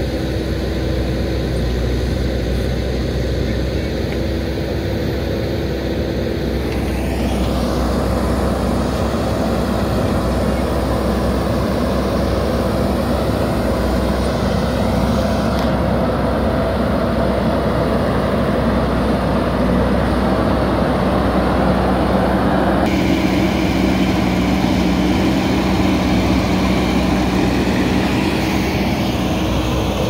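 Diesel engine of a JCB backhoe loader running steadily under working load, with three abrupt changes in its tone.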